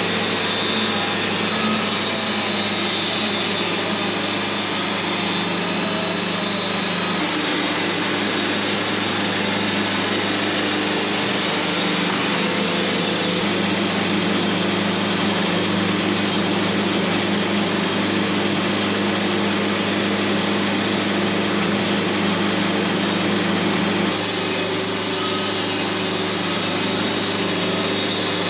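Wood-Mizer portable band sawmill running steadily as it saws a poplar log, its engine drone shifting slightly in tone twice.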